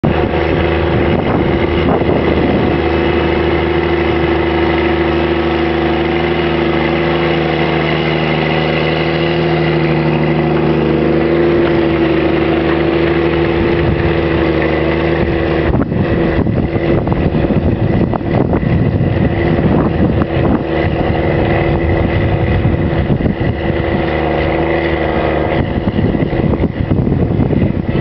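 Challenger MT765B rubber-tracked tractor's diesel engine running steadily under load while pulling a seven-furrow plough, a constant drone. About halfway through, the steady drone gives way to a rougher, more irregular noise over the engine.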